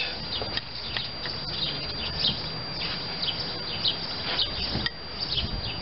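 Small birds chirping again and again in short, high notes over a steady background hiss, with a faint click about five seconds in.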